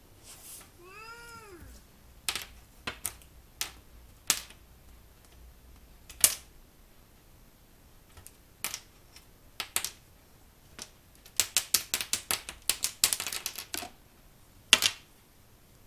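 A kitten meows once, a short call that rises and falls, about a second in. Around it come scattered sharp clicks and taps on a hard floor as she plays with a stick-and-thread wand toy, with a quick flurry of clicks near the end.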